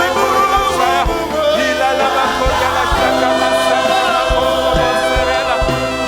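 Gospel worship music: voices singing together over a band with drum beats.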